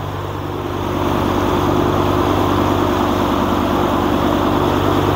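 Fishing boat's engine running steadily under way while towing a float, a deep drone with the rush of water from the wake over it; it grows a little louder about a second in and then holds steady.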